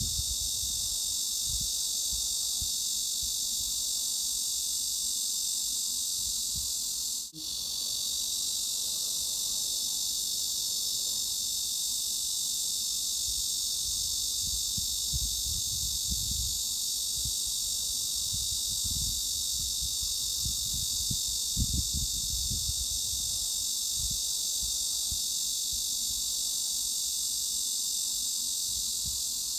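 Cicada chorus as a steady, high-pitched shrilling buzz with no lower tones beneath it. It cuts out for an instant about seven seconds in, then carries on unchanged.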